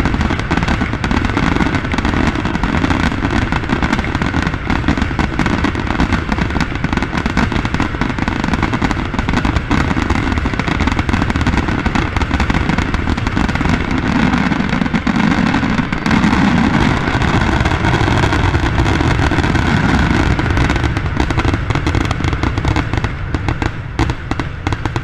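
A fireworks barrage: shells bursting in quick, unbroken succession, with booms and crackle running together into a continuous rumble. It eases off slightly near the end.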